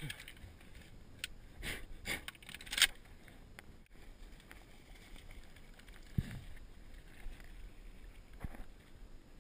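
Shotgun shells being handled: a handful of sharp clicks and knocks in the first three seconds, then a quiet stretch broken by a single thump about six seconds in.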